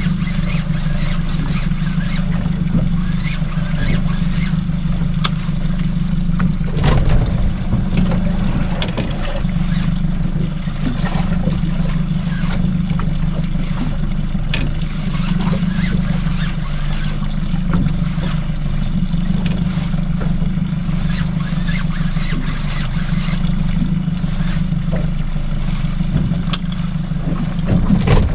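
Small fishing boat's engine running steadily underway, a constant low hum, with water splashing against the hull.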